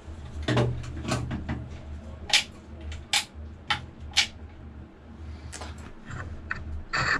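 Scattered sharp clicks and knocks, about eight of them, as a cordless work light and tools are handled and set down, over a low steady hum.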